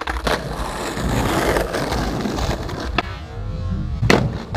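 Skateboard wheels rolling over rough concrete, growing louder as the board comes closer. About three seconds in there is a sharp clack of the tail popping, a short quieter gap while the board is off the ground, then a louder clack as it lands about a second later.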